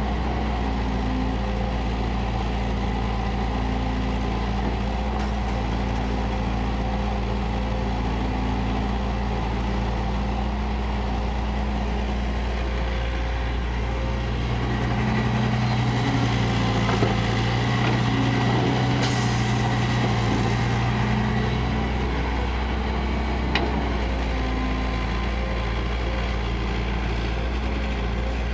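Kobelco crawler excavator's diesel engine running steadily, loading up and getting louder for several seconds about halfway through before settling back. Two brief knocks are heard over it.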